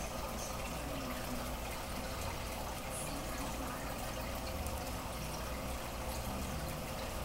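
Steady trickle and bubbling of a goldfish aquarium's circulating water, over a steady low hum.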